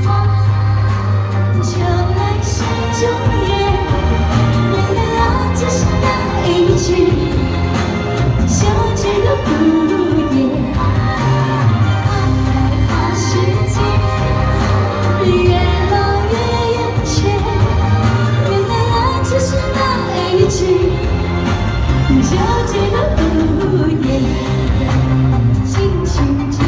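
Chinese pop song sung with instrumental accompaniment and a steady beat.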